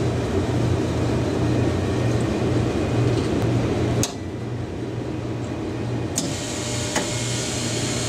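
Steady low hum and hiss of equipment in a small room, then a sharp click about four seconds in as the siren controller's ALARM push-button is pressed, after which the hum is quieter. Two fainter clicks follow later.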